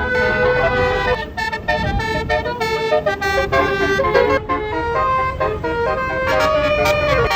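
Bus basuri (telolet-style) musical horn playing a tune: several horn tones sound together and step from note to note, with short clipped notes early on and longer held notes later.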